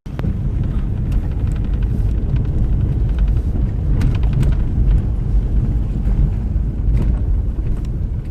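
Steady low rumble of a vehicle on the move, most likely the scrapper's van driving, with a few faint clicks over it.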